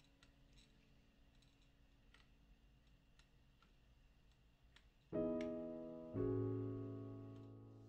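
Background piano music: faint scattered clicks, then two soft chords struck about a second apart a little past halfway, each ringing and fading slowly.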